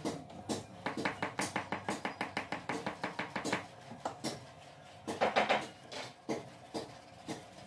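Small metal hand tool working a leather shoe upper: a quick run of sharp light clicks, about six a second for some three seconds. A louder, denser cluster of scraping clicks comes about five seconds in, then a few scattered single clicks.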